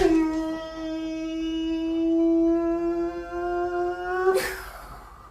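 A man's voice holding one long wailing note for about four seconds, rising slightly in pitch near the end, then breaking off in a breathy rush.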